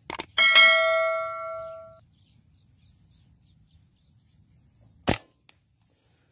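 Subscribe-button sound effect: a quick double mouse click, then a bell ding ringing out and fading over about a second and a half. About five seconds in comes a single sharp crack of an air-rifle shot, with a faint tick half a second later.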